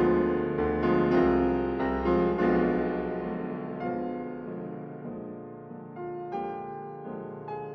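Background piano music: struck notes and chords ringing out, louder in the first couple of seconds, then slowly dying away.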